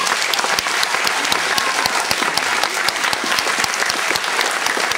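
A hall full of schoolchildren and adults applauding steadily, many hands clapping at once.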